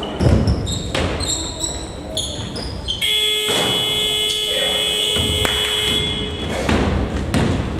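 Basketball scoreboard buzzer sounding one steady electronic tone for about three seconds, starting suddenly partway in. Before it, short shoe squeaks and a ball bouncing on the court.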